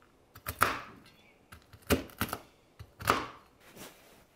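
Kitchen knife chopping shelled pistachios on a wooden cutting board: a string of irregularly spaced chops as the blade knocks against the board.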